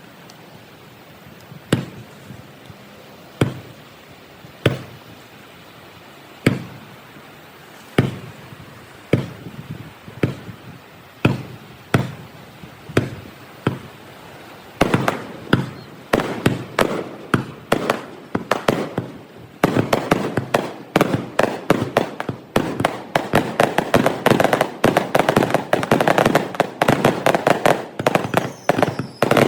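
Fireworks display: single bursts banging about once every second or so, then from about halfway a dense barrage of many rapid bangs.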